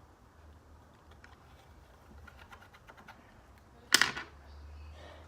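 Light scattered clicks and taps of utensils and containers being handled on a table, with one sharp knock about four seconds in.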